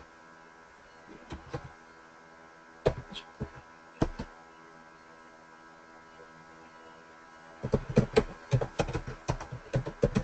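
Computer keyboard typing: a few scattered key presses, then a quick run of keystrokes near the end.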